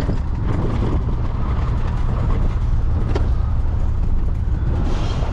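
Truck running, a steady low rumble of engine and road noise, with one light click about three seconds in.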